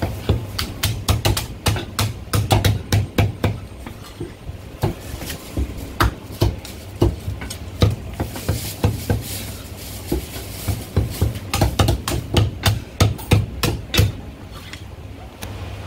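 Heavy Chinese cleaver chopping through roast poultry, bone and all, knocking into a thick end-grain wooden chopping block: quick runs of sharp chops, several a second, with short pauses between runs.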